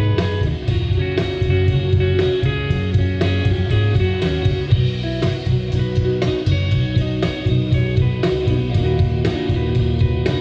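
Live rock band playing: two electric guitars, electric bass and a drum kit keeping a steady beat.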